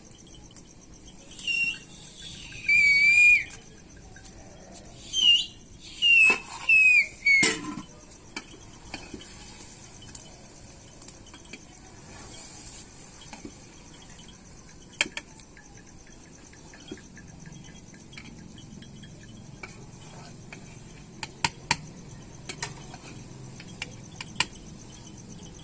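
High, wavering bird-like calls, two groups of several calls each in the first eight seconds, followed by scattered sharp clicks and knocks.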